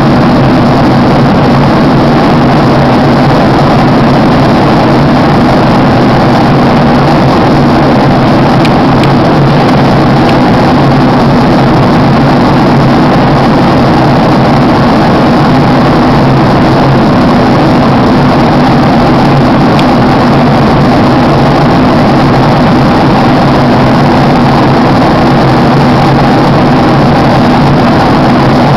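Passenger airliner cabin noise in flight: a steady loud drone of engine hum and rushing air.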